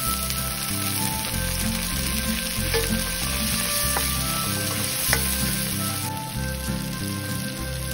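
Diced tomatoes, onion and garlic sizzling in hot oil in a nonstick wok, stirred with a spatula that scrapes and knocks against the pan a few times. The sizzle eases about six seconds in.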